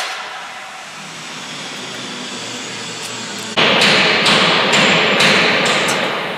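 Metalworking noise in a locomotive workshop. After a steady lower background, a loud clatter of steel being worked starts suddenly about halfway through, with sharp hammer-like strikes roughly twice a second, and it fades toward the end.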